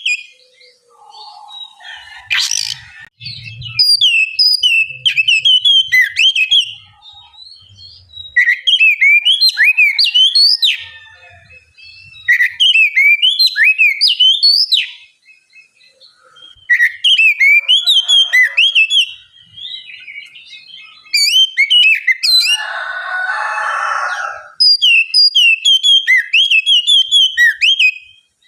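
Oriental magpie-robin singing: loud phrases of quick, rising and falling whistled notes, each burst lasting about two seconds with short pauses between. There is a sharp click about two seconds in, and a brief harsh rasp about three-quarters of the way through.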